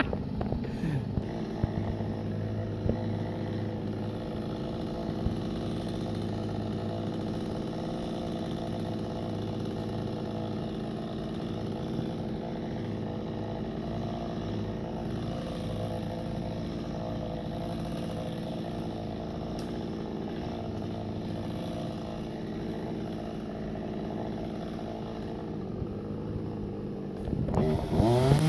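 Chainsaw idling steadily, then revved up just before the end.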